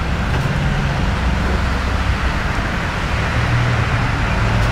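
Low, steady rumble of a car close by, with deep held bass notes from its stereo shifting pitch a couple of times, over street traffic noise.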